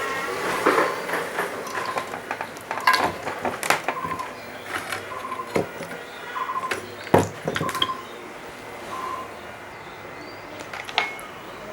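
Scattered clinks, taps and knocks of tools and metal parts being handled, the loudest about seven seconds in, with short high chirps repeating every second or so.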